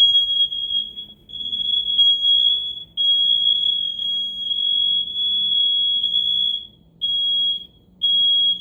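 Smoke alarm sounding its high-pitched piezo tone during a test, in long near-continuous blasts with brief gaps. It ends with two short beeps and then stops.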